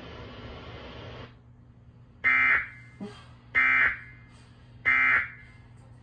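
Emergency Alert System end-of-message data tones: three short, harsh digital buzzing bursts about a second and a half apart, signalling that the alert message is over.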